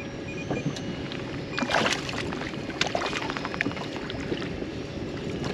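Water slapping and sloshing against an inflatable boat's hull as a small hooked fish is drawn to the side, with a splash near the surface about two seconds in and a few sharp clicks after it.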